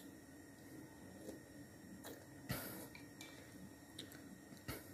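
Faint eating sounds: a metal spoon ticking a few times against a ceramic bowl, with a brief louder mouth noise about two and a half seconds in as a spoonful of rujak fruit salad with ice cream is eaten.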